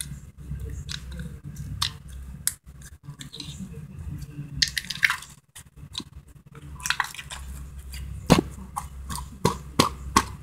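Green glitter slime being squished and poked by hand, making a string of short wet clicks and pops that come thicker toward the end.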